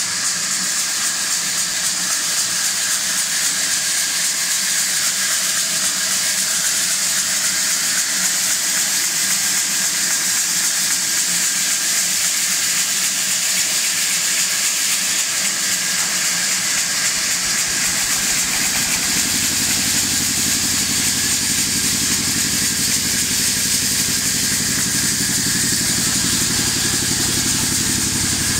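Band sawmill running steadily, a constant high hiss over a machine drone. About two-thirds of the way through, a low, steady engine hum comes in and runs on under it.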